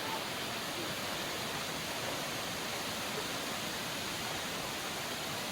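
Steady, even rush of water falling at Tendaki waterfall.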